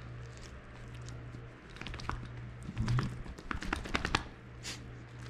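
A small dog moving about with its front paws up on a person's lap: a quick run of light clicks and taps, bunched from about two seconds in to about four seconds in, with a short hiss near the end.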